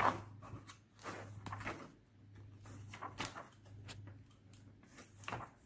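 Pages of a thin paper booklet being flipped and handled: soft, scattered rustles and light taps over a low steady hum.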